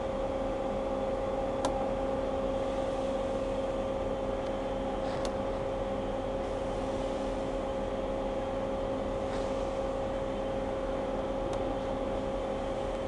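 A steady machine hum with one strong constant tone over a low noise bed. A few faint, sharp clicks come about a second and a half in, around five seconds in, and near the end.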